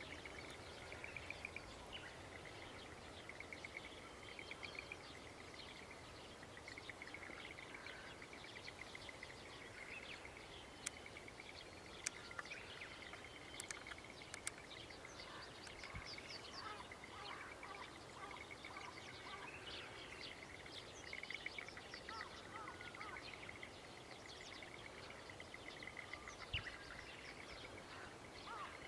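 Several songbirds singing in a rural dawn chorus, with many short chirps and trills and one bird's repeated trill carrying on through most of it. A few sharp clicks come in a cluster about halfway through.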